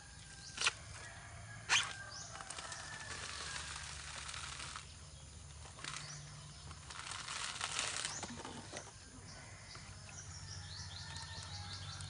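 Whole coconuts knocking together twice in the first two seconds, then longer stretches of husks rustling and scraping as coconuts are lifted and shifted on a heap. A bird chirps a quick falling series near the end.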